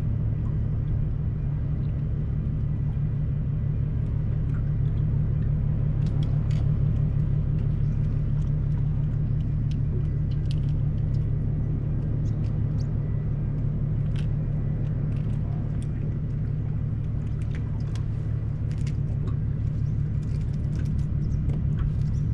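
Boat's outboard motor idling: a steady low rumble with a fast, even pulse, with a few faint light ticks over it.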